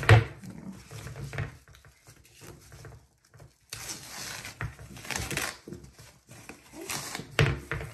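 Rustling and crinkling of white protective wrapping being unwound and pulled off a leather handbag handle, with a sharp knock right at the start.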